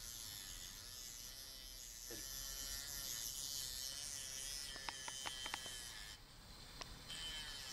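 Small high-speed electric rotary tool with a cutting disc, whining as it grinds through the steel of a pair of handcuffs. A quick run of sharp clicks comes about five seconds in, and the cutting sound eases for about a second just after.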